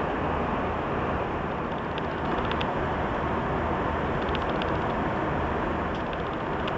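Steady rush of airflow and engine noise inside an Airbus A320 cabin in flight. A few faint crisp rustles from the paper pages of the in-flight magazine being turned.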